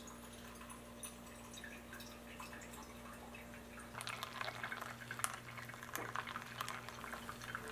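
Hot water poured in a thin stream from a gooseneck kettle onto coffee grounds in a paper filter, with soft crackling and dripping. It grows louder and busier about halfway through.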